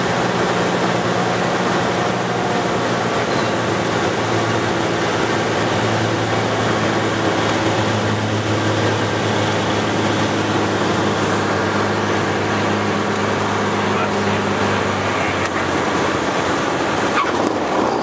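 Cabin sound of a Cessna 210's six-cylinder piston engine and propeller, with airflow noise, as the single-engine plane lands and rolls out: a loud, steady drone whose low hum changes pitch about four seconds in and fades near the end as power comes off.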